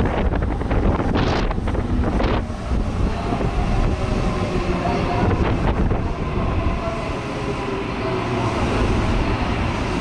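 Electric commuter train pulling into the platform and slowing, with a steady rumble and a faint whine from its running gear. Wind buffets the microphone in the first couple of seconds.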